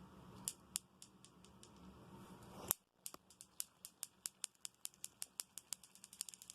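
Clacker balls (a ball-on-string clacker toy) knocking together: a few scattered clacks, one louder clack near the middle, then a quick, even run of clacks at about four or five a second.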